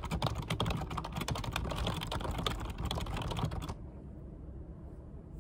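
Fingers typing on a computer keyboard: a quick, irregular run of key clicks. The clicks stop a little under four seconds in, leaving only a dull low rumble.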